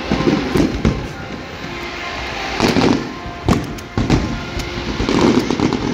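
Fireworks display: aerial shells bursting in a series of loud bangs, several within a few seconds, with crackling between them.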